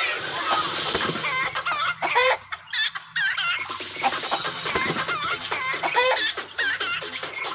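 Chickens clucking and calling in short, repeated wavy chirps.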